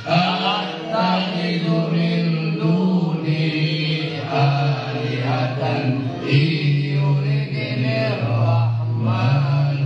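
A group of men chanting an Islamic prayer recitation in long, drawn-out held notes, the leading voice carried over a microphone.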